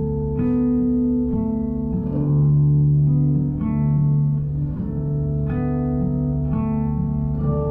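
Background music: plucked guitar notes, a new one about every second and left to ring, over a sustained low bass.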